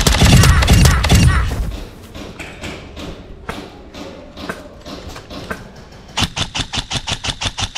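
A loud low thump and rumble at the start, then an airsoft rifle firing a fast string of shots, about six a second, near the end.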